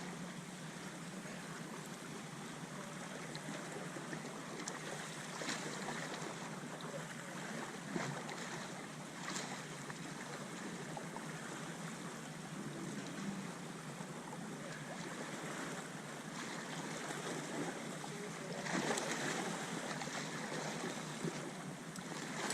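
Steady wash of sea water and wind noise, with a few faint short clicks or knocks.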